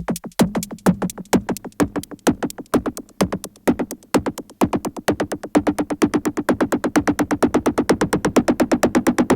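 Dave Smith Instruments Prophet 12 hybrid synthesizer playing a fast, even run of short staccato notes, about eight a second, over a held pitched tone.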